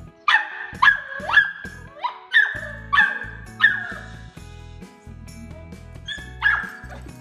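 German shorthaired pointer puppy barking: about seven sharp, high-pitched barks in quick succession over the first four seconds, then one more near the end, over background music.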